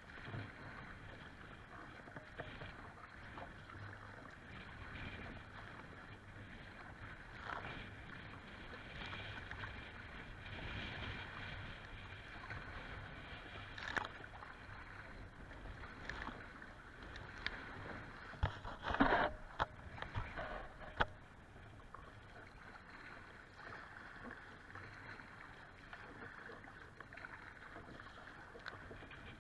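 Choppy lake water slapping and splashing against a kayak as it is paddled, over a steady rush of water. A splash comes about halfway through, and a run of louder splashes follows about two-thirds of the way in.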